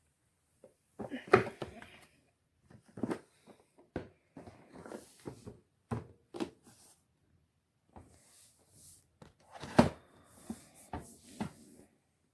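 Irregular clicks, knocks and light rattles of a Bissell Zing canister vacuum's plastic parts being handled, with two louder knocks, one about a second in and one near ten seconds.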